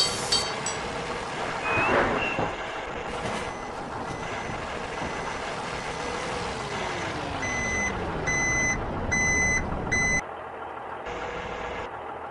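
Truck sound effects: an engine running, its pitch rising at first and later winding down, then a reversing alarm beeping four times near the end as the truck backs up.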